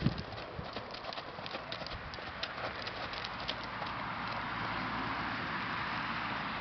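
Hoofbeats of a horse moving on a sand arena: short dull clicks and thuds, with a brief louder thump at the very start. From about four seconds in, a steady rushing noise grows over the hoofbeats.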